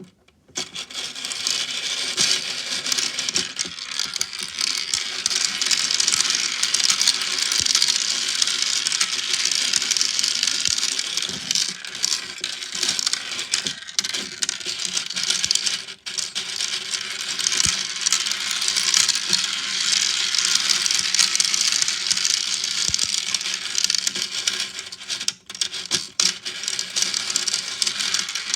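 6 mm balls rolling and clattering through a tiny 3D-printed marble run: a dense, continuous rattle of many small clicks. There are brief breaks about 16 and 25 seconds in.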